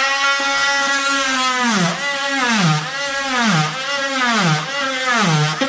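Circular saw running and cutting through vinyl flooring and underlayment, its motor whine dipping in pitch about once a second as the blade is pushed into the cut and eased off.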